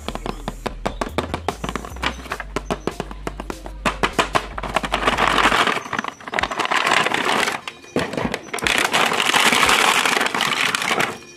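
Crinkling and rustling of a toy's cardboard box and clear plastic blister tray being handled and opened, with sharp clicks throughout and loud stretches of crinkling in the second half. Background music with a low bass line plays under it and stops about halfway through.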